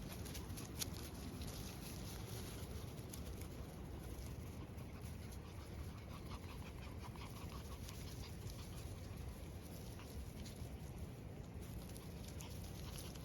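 Collie puppies playing and scuffling together: soft rustles and scattered light clicks and patter of small paws.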